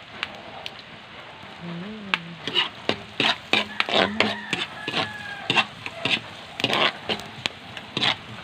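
Onion and garlic sizzling in butter in a wok, with a steady hiss. From about two and a half seconds in, a utensil scrapes and knocks against the pan in quick, uneven strokes as the food is stirred.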